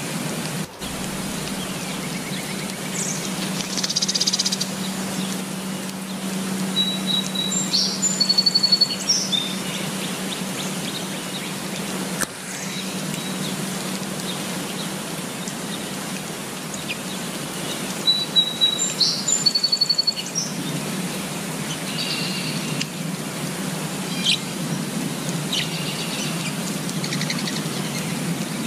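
Steady rain falling on leafy foliage, with songbirds chirping and trilling over it in short bursts, loudest around eight seconds in and again around nineteen seconds.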